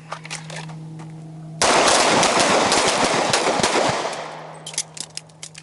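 Handgun fire from several shooters at once. About a second and a half in, a sudden run of rapid, overlapping shots begins and lasts a couple of seconds, then thins to a few scattered shots near the end.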